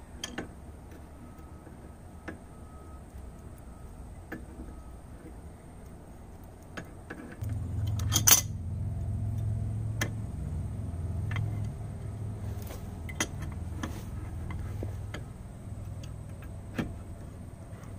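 Adjustable wrench clicking against the spindle nut of a trailer wheel hub as the nut is tightened after a bearing repack: a scatter of small metallic clicks, the sharpest about eight seconds in. A low rumble comes in about seven and a half seconds in and continues under the clicks.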